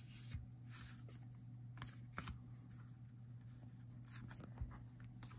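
Baseball cards handled by hand: a few faint paper slides, flicks and taps as cards are moved one off another. Under them runs a steady low hum.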